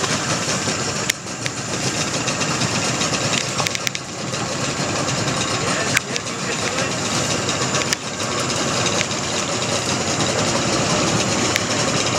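A boat's engine idling steadily, with a few sharp snaps on top about 1, 4, 6 and 8 seconds in.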